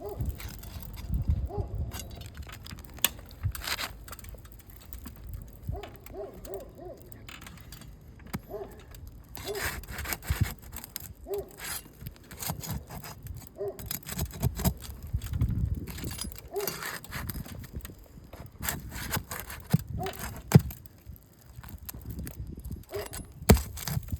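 Asphalt roof shingles being pried up and their nails worked loose: irregular scraping, clicking and sharp knocks of a tool against shingles and fasteners, with short pitched squeaks recurring every second or two.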